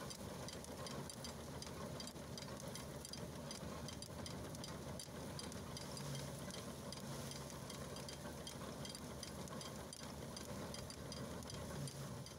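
Agricultural steam traction engine driving a threshing drum by belt, the machinery running steadily with a low hum and a regular light ticking.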